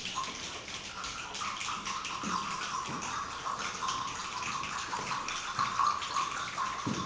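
A group making a rainstorm with their hands, the way a rain choir does: a dense, even patter of many small snaps and taps that sounds like rain falling.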